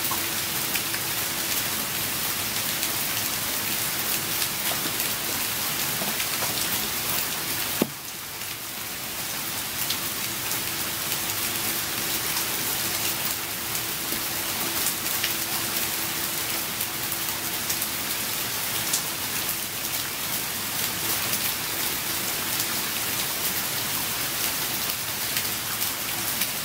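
Steady rain falling, a continuous hiss dotted with fine drop ticks. A single sharp click about eight seconds in.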